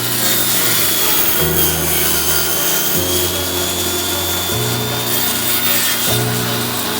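A tool working wood, making a continuous scraping noise with a faint whine, over background music whose chords change about every one and a half seconds.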